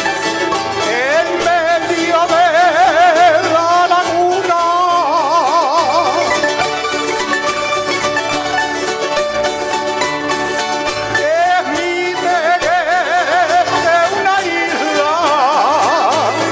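Folk music with a singing voice that holds long notes with a wide vibrato, over steady string accompaniment.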